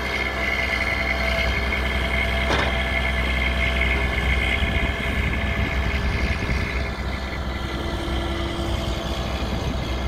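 Logging truck's Detroit Series 60 diesel engine running steadily while the truck's log loader boom swings, with a steady high whine over the engine and one brief knock about two and a half seconds in.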